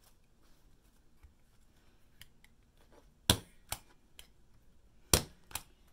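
A cheap stapler, opened up flat to tack, driving staples through fabric into a wooden canvas stretcher frame. There are two sharp snaps about two seconds apart, each followed by a lighter click, with a few faint ticks between.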